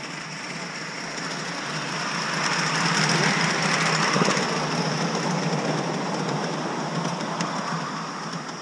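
A coal-fired 5-inch gauge live-steam model of the A1 Pacific Tornado, 60163, running past with its riding cars on the rails. It grows louder as it comes close, is loudest about three to four seconds in, then fades as it goes away.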